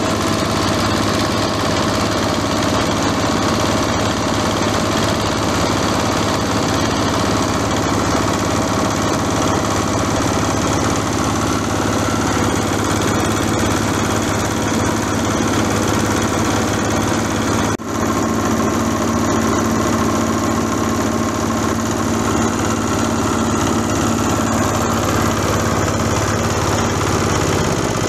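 Small stationary single-cylinder diesel engine running steadily, belt-driving an oil palm frond chopper as fronds are fed in and shredded. There is one brief dip in level about two-thirds through.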